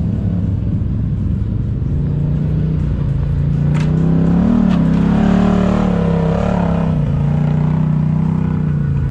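Off-road vehicle engine running under throttle, its pitch rising and falling as it speeds up and eases off, highest about halfway through.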